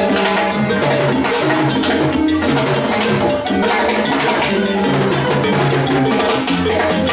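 Live Latin band playing a percussion-heavy groove: congas and timbales with cymbal over an electric bass line.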